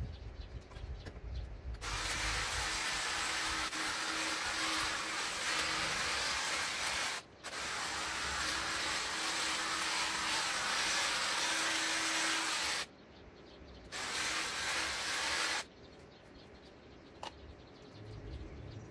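Einhell GE-CH 1846 Li cordless hedge trimmer running while cutting a hedge, in three runs: two of about five seconds with a very brief break between them, then a short run after a pause of about a second.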